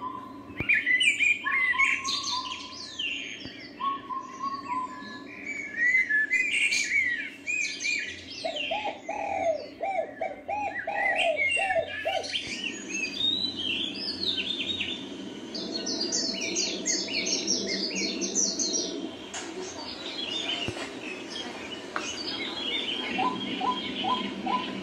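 A chorus of wild birds, many calling at once: quick high chirps and trills overlapping throughout, with a run of lower repeated notes about nine seconds in.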